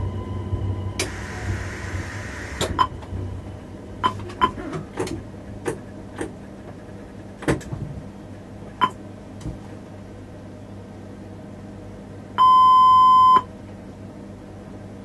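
Inside the cab of an X31 Öresundståg electric train as it comes to a stand: a low steady rumble, a short burst of hiss, a series of sharp clicks and knocks, then one loud electronic beep from the cab equipment lasting about a second, near the end.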